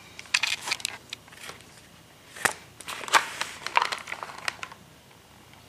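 Stiff leather of a Lewis shoulder holster and its rawhide yoke being handled close to the microphone: crackling and creaking in two spells, with a sharp click about two and a half seconds in.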